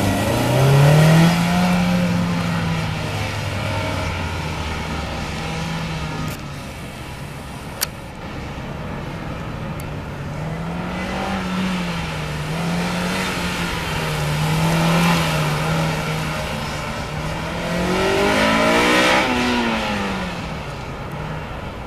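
Honda S2000's four-cylinder engine launching from a standstill and accelerating hard, then rising and falling in pitch again and again as the throttle is worked between slalom cones. A single sharp click comes about eight seconds in.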